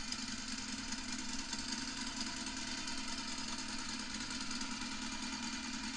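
Recorded sound effect of a Harley-Davidson V-twin engine idling steadily, played back from an animated PDF.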